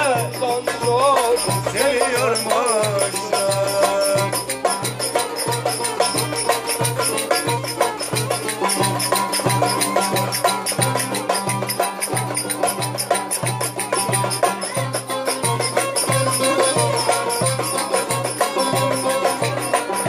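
Turkish folk dance tune (oyun havası) played live on violin and bağlama, over a steady low beat of about two pulses a second with quick rattling percussion. The violin's sliding notes stand out in the first few seconds.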